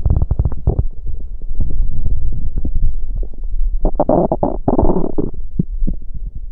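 A person's stomach rumbling and gurgling after too much fast food: a run of rapid low clicks and bubbling, with two louder gurgles around four and five seconds in.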